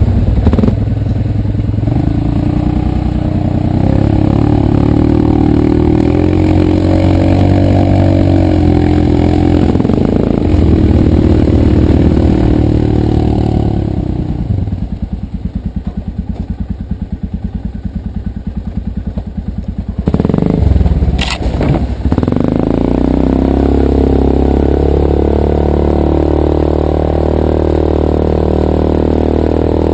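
ATV engine running under a rider on a rough trail, the revs rising and falling, easing off for a few seconds past the middle. A sudden loud thump and clatter comes about two-thirds in, after which the engine runs on steadily.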